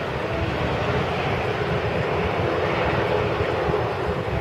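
Engines of an ATR 72-500 turboprop airliner running steadily as it moves along the runway, a continuous even engine noise.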